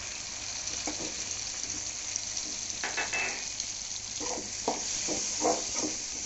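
Chopped tomatoes and shallots sizzling in hot oil in a metal kadai, a steady frying hiss. In the second half a slotted spoon scrapes and stirs through them against the pan in a run of short strokes.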